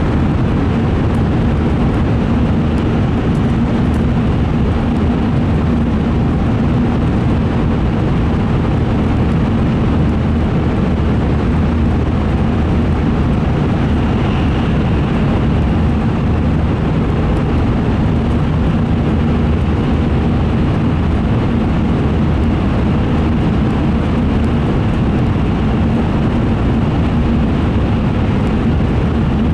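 Steady low running rumble of an N700A Shinkansen train at speed, heard from inside the passenger car.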